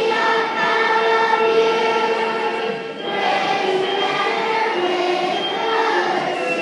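Group of schoolchildren singing together in unison, holding long notes, with a short break for breath about three seconds in.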